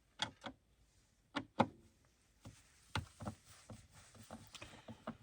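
Scattered light clicks and taps of a screwdriver and hands working on a loudspeaker cabinet, unscrewing the tweeter. The louder clicks fall in the first two seconds, then smaller ticks follow.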